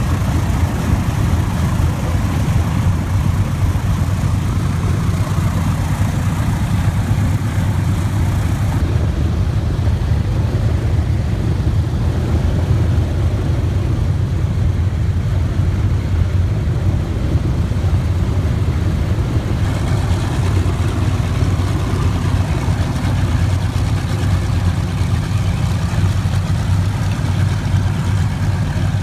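Boeing B-29 Superfortress radial piston engines running steadily as the bomber taxis past, a loud, even low-pitched engine sound with spinning propellers.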